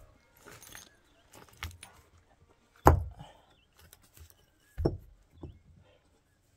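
Rough stones being handled and set in a trench, knocking against each other: two loud sharp knocks about three and five seconds in, with smaller clicks and scrapes of rock and gravel between.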